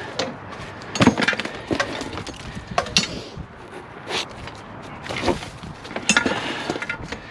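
Scrap metal and wire being picked through and tossed aside during sorting: irregular clanks and knocks, about eight of them a second or so apart, with handling noise between.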